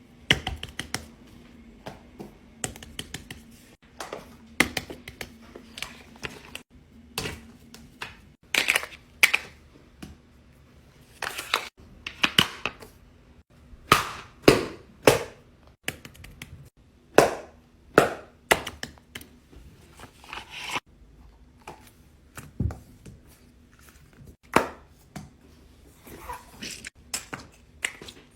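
Fidget toys being pressed and popped: a string of sharp, irregular pops and clicks, sometimes several in quick succession, with short quiet gaps between.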